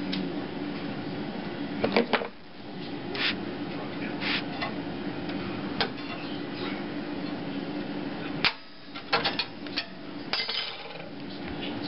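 Irregular clicks and knocks of plastic and metal parts being handled and snapped out of a computer case's drive bays, with a cluster of quick clicks near the end, over a steady low hum.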